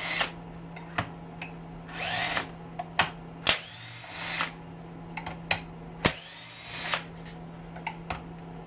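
Cordless drill-driver run in short bursts, each winding up and back down in pitch, backing screws out of a hedge trimmer's housing. Sharp clicks come between the bursts.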